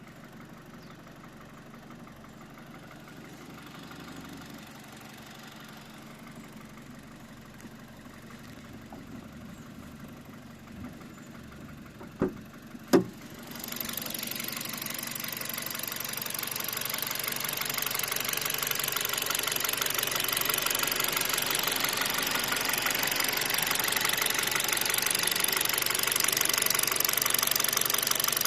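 Kia Rio 4 engine running with a knock from the engine. Two sharp knocks come about twelve seconds in. The engine sound then gets much louder and keeps rising for several seconds before it holds steady.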